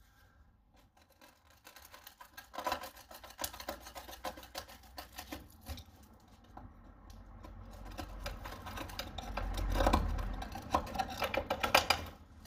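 A screwdriver scraping and picking at rusted steel and old seam sealer at the base of a car's front wing, a rapid run of small scratches and clicks. A low rumble builds under it and is loudest about ten seconds in.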